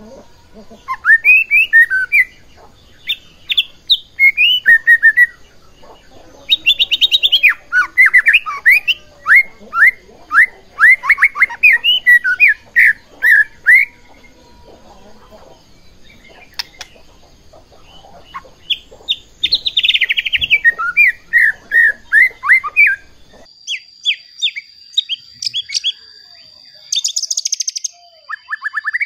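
White-rumped shama singing phrases of rapid, loud, sharply rising and falling whistled notes, with a pause of several seconds about halfway through. In the last few seconds short notes go on over a steady high-pitched tone.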